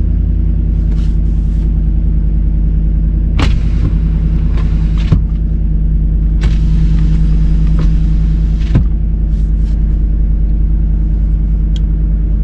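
A 6.6 L L8T gas V8 with a GM Borla exhaust idling steadily just after a cold start, heard from inside the truck's cab. A few clicks and a short stretch of rushing noise come between about three and nine seconds in.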